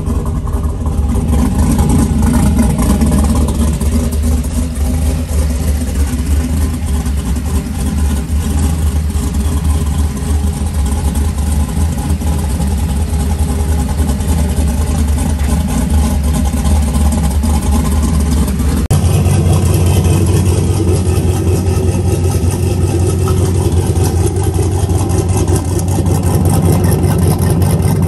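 Chevrolet Silverado pickup engine idling steadily, loud through its exhaust with a heavy low rumble.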